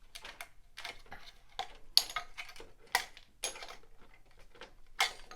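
Hard plastic toy parts being handled and fitted together: irregular clicks and clatters, with sharper snaps about two, three and five seconds in.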